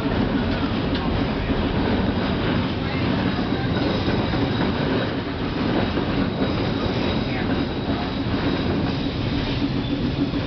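New Orleans streetcar running along its track, heard from inside the car: a steady rumble of wheels on rail and the car's motors.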